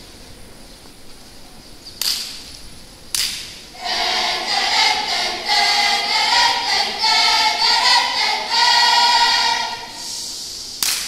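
A school choral group's voices, two sharp bursts, then the whole group singing together in long held notes for several seconds, fading near the end.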